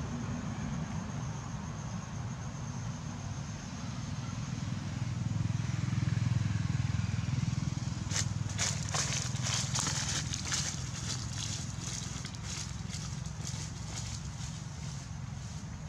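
Outdoor ambience: a steady low rumble, stronger in the middle, with a run of crackling clicks in the second half.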